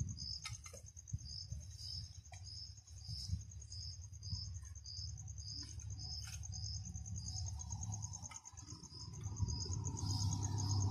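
Insects chirping: a steady high trill with a second, pulsed chirp repeating about two to three times a second. A low rumble grows louder near the end.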